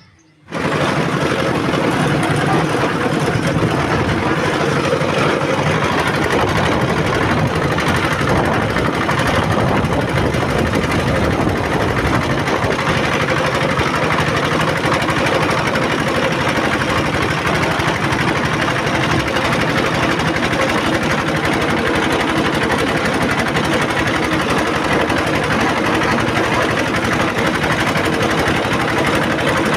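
An engine running steadily and loudly, starting abruptly just after the beginning.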